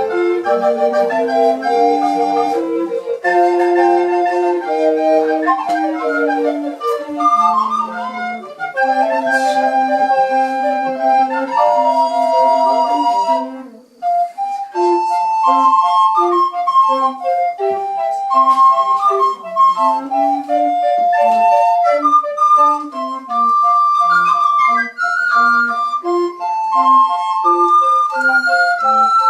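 Recorder ensemble playing a piece in several parts at once, with a brief pause about fourteen seconds in before the playing resumes.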